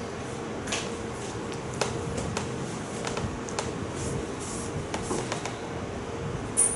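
Writing on a classroom board: irregular light taps and clicks with brief scratchy strokes, and one sharper tap near the end, over a steady room hum.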